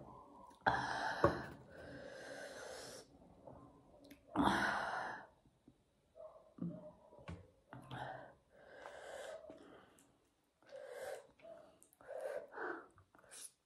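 A woman forcing air hard through pursed lips, a loud breathy hiss about a second in and again at about four and a half seconds, from the burn of very spicy food. After that come softer, short mouth sounds as she goes on eating.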